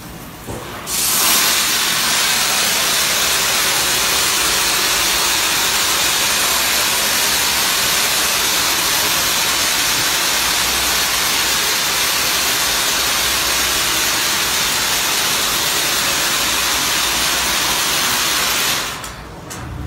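Spray jets of an automatic motorcycle wash booth spraying the motorcycle: a loud, steady hiss that starts suddenly about a second in and cuts off near the end.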